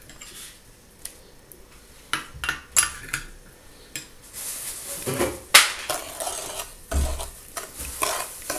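A metal spoon in a bowl of liquid marinade: a few scattered clinks, then from about four seconds in the spoon stirs and scrapes through the liquid with sharper clinks against the bowl.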